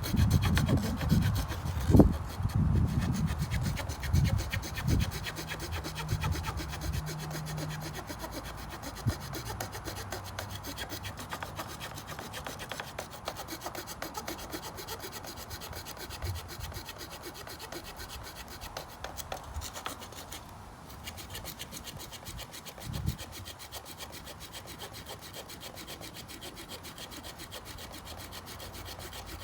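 Leatherman multi-tool's small saw blade cutting through a wooden 2x4, with steady, quick back-and-forth rasping strokes. A few heavier knocks are mixed in over the first several seconds.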